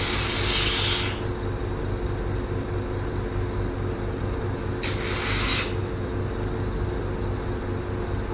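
Hydrofacial machine's vacuum pump running with a steady hum while the microdermabrasion handle is in use, with two short hissing rushes of air, one at the start and one about five seconds in.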